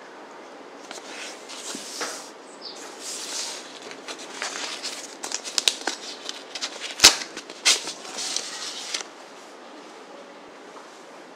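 Paper envelope being handled and opened: crackling and rustling of stiff paper as a sticker seal is peeled off the flap, with many small clicks and one sharp snap about seven seconds in. It starts about a second in and stops about nine seconds in.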